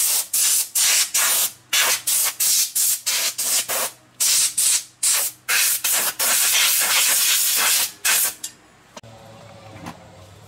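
Pressurised spray hissing in short, rapid bursts, about two or three a second, then a longer steady spray before it stops about eight and a half seconds in. A faint low hum is left after it.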